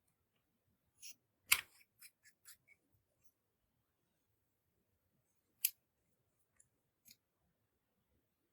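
Scattered sharp clicks and pops from clear slime being handled and pressed: a quick cluster, the loudest about one and a half seconds in, then single clicks later on.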